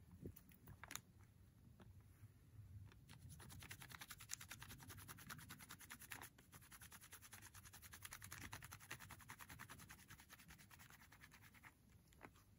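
Near silence with faint, rapid scratching or rubbing close to the microphone, fading out near the end.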